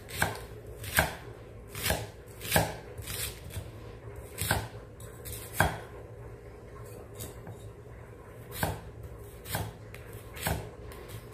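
Chef's knife chopping an onion on an end-grain wooden cutting board: irregular sharp knocks of the blade striking the board, roughly one a second, with a quieter stretch of only faint ticks past the middle.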